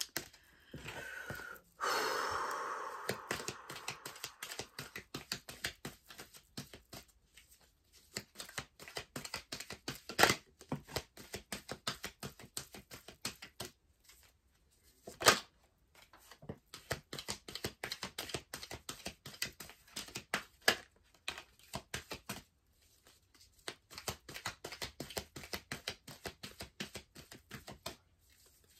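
Tarot deck being shuffled by hand: runs of rapid soft card clicks and slaps with brief pauses, and a couple of sharper snaps. It opens with a longer rustle of cards.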